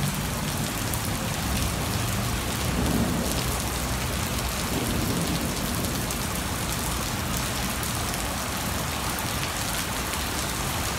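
Heavy rain pouring steadily onto tiled and paved ground in a downpour, splashing on the wet paving. A low rumble of thunder swells around three seconds in and again near five seconds.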